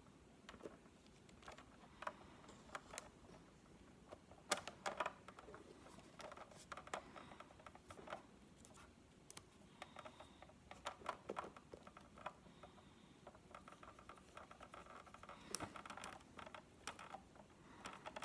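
Faint handling noises: scattered small clicks, taps and scratchy rustles as the rubber skin of a Big Mouth Billy Bass singing fish is stretched and fitted over its body.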